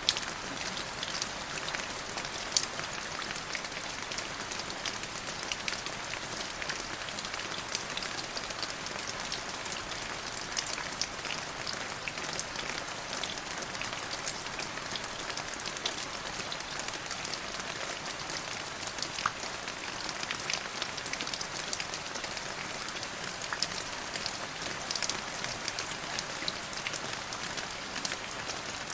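Steady rain falling, a constant hiss with many sharp individual drops pattering through it.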